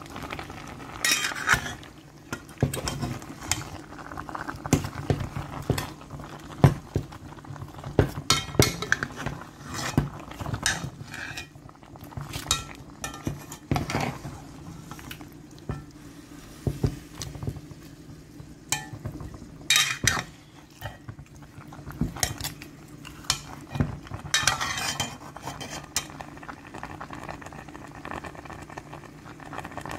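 Raw chicken pieces being mixed with chopped onion, peppers and curry seasoning in a cooking pot: irregular clinks and knocks against the pot, over a steady low hum.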